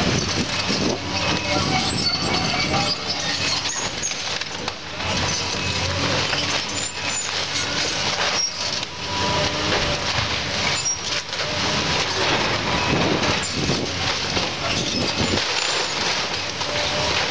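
A Case hydraulic excavator tearing into a wood-framed building: a continuous din of timber cracking, creaking and squealing and debris crashing down, over the excavator's running engine.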